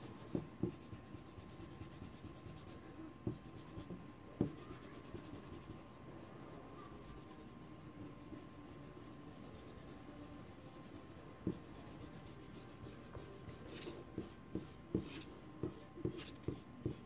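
Block eraser rubbing back and forth on paper, erasing pencil guide lines, with scattered soft taps and scuffs that come more often near the end.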